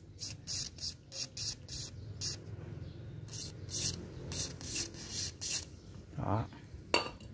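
Aerosol can of RP7 penetrating oil squirted through its extension straw onto seized screws of a Makita angle grinder's housing, in about a dozen short hissing bursts, to loosen them.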